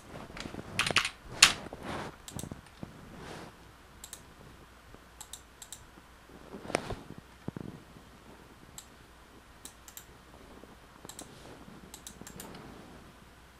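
Computer keyboard typing and mouse clicks: irregular keystrokes, with a quick run of them about a second in and another cluster near the middle, then scattered single clicks.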